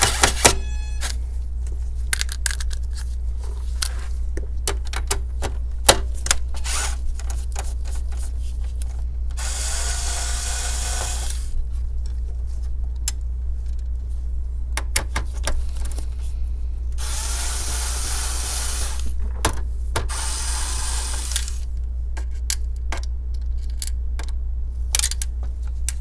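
Cordless electric screwdriver backing out the screws that hold a laptop hard drive, in three short runs of about two seconds each. The motor's pitch rises as it spins up, and there are light clicks of handling between the runs.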